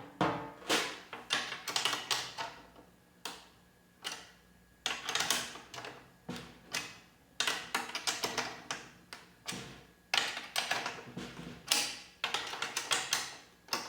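Snare drum being tuned: irregular clusters of light taps and clicks on the drumhead and around the tension rods, with short pauses between clusters.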